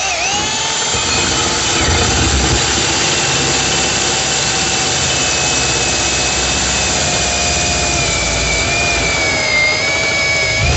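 Electric core drill with a large core bit cutting a hole through a wall: a steady, loud motor whine. The pitch sags slightly under load near the end, then the drill stops.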